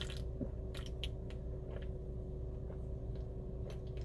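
A person drinking from an aluminium can, with a few short, scattered clicks of swallowing and lip sounds over a steady low hum.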